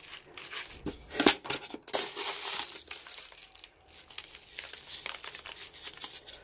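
Bubble wrap crinkling and crackling under a small succulent pot as it is pressed and turned on it, with coarse grit trickling in from a plastic scoop. The sharpest crackles come about a second in, then softer rustling follows.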